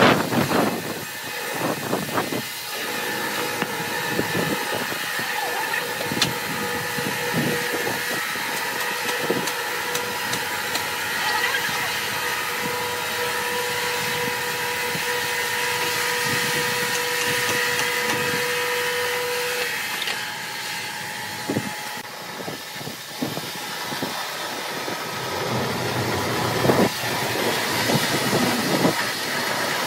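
Large log band sawmill running with a steady mechanical drone. A steady whine stops about two-thirds of the way through, and there are a few short knocks near the start and near the end.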